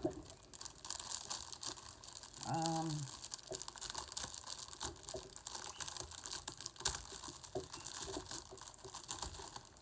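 Plastic packaging and paper crinkling and rustling as they are handled, with a sharp click about seven seconds in. A short hum of a voice comes partway through.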